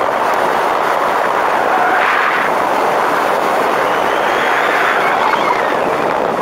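A Mercedes 190E driven hard through an autocross course, heard from a camera mounted on the outside of the car: a loud, steady rush of wind and road noise. A faint squeal of the tyres rises and falls through the turns, loudest a little past halfway through.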